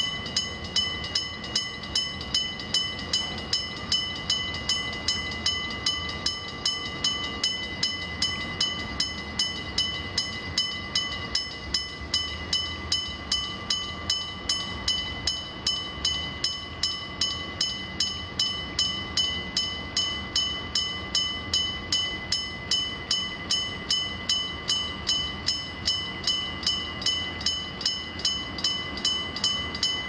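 Electric-bell level crossing signal ringing steadily, its bell struck a little over twice a second and ringing on between strikes: the crossing is warning of an approaching train.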